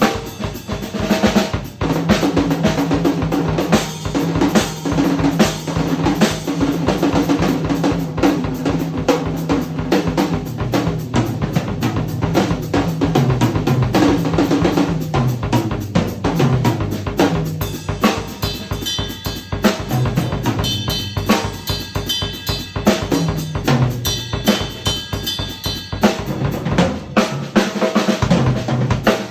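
Yamaha Recording Custom drum kit played without a break: busy improvised drumming on bass drum, snare and toms, with tom runs stepping down in pitch and more cymbal in the second half.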